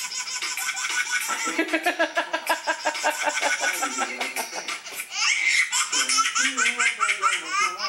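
Baby-laughter ringtone played back: a baby giggling and belly-laughing in quick repeated bursts, with a high rising squeal about five seconds in.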